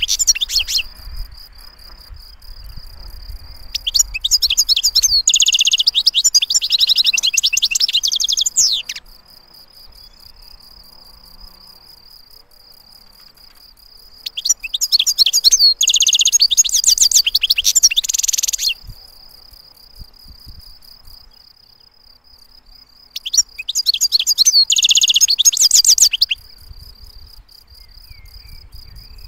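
European goldfinch singing: four bursts of rapid, high twittering song with pauses between them. A steady thin trill at one high pitch carries on underneath.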